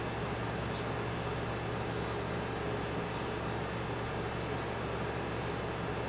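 Steady low background rumble and hiss with no change, and a few faint, short high chirps about a second to two seconds in.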